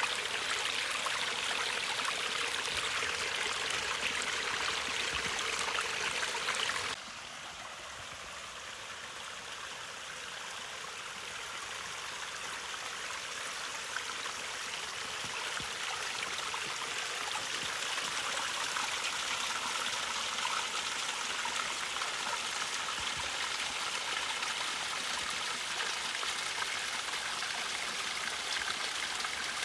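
Waterfall rushing: a steady hiss of falling water. About seven seconds in it drops suddenly to a quieter, duller rush, which slowly builds louder again.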